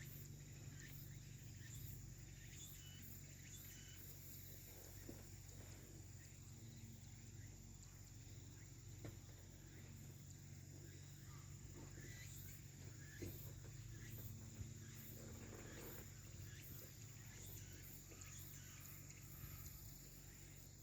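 Quiet background: a faint steady low hum with a few soft scattered clicks.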